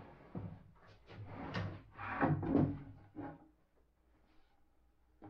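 Plywood panels being handled on a workshop table: a run of wooden knocks and scraping as panels are slid, lifted and set down, about three and a half seconds of it, then a pause and a sharper knock at the very end.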